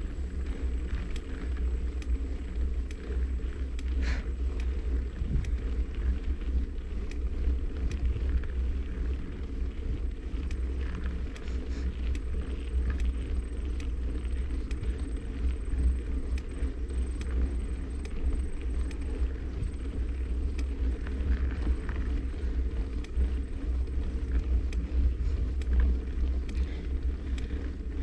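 Steady low rumble of wind buffeting and road vibration on a camera mounted on a moving bike, with faint ticks and rattles here and there.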